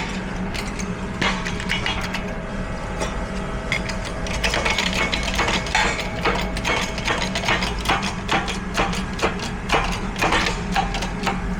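Many quick metal-on-metal taps and clicks, coming thicker from about four seconds in, as a bearing is worked down onto a Detroit Truetrac differential carrier, over a steady low shop hum.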